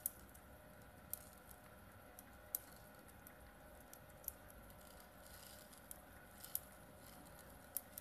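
Polypropylene pellets dropping from a plastic cup onto the steel rollers of a lab two-roll mill: faint, sharp, irregular clicks, about a dozen, over the mill's faint steady hum.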